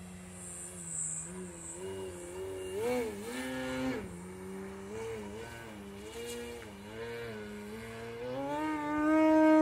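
Extreme Flight Extra 260 RC aerobatic plane's T-Motor AM670 electric motor and 18x8 carbon propeller, its hum rising and falling in pitch with the throttle. It peaks briefly about three and four seconds in, then climbs steadily to its highest and loudest near the end.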